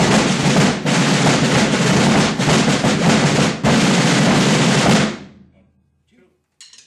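A rudimental drum line of wooden rope-tension snare drums and a rope-tension bass drum playing together in a fast, dense cadence. The drumming stops about five seconds in, leaving a few faint ticks.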